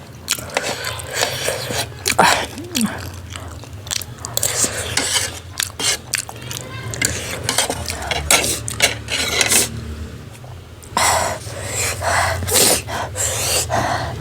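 Close-miked eating sounds: chewing and mouth noises, with utensils clicking against a dish, over a steady low hum.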